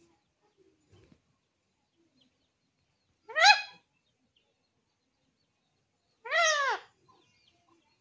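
Ringneck parakeet giving two short, loud calls about three seconds apart, the second a little longer and rising then falling in pitch.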